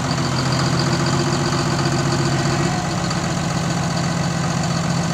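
Log skidder's diesel engine idling steadily, with a faint steady tone over it that stops about halfway through.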